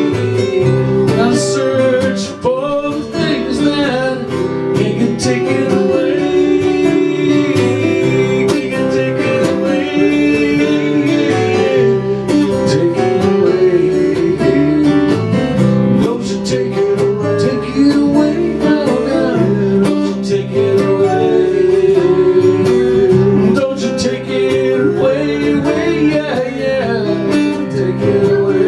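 Acoustic guitar strumming and picking an instrumental passage of a country-style song, with a wavering melody line above the chords.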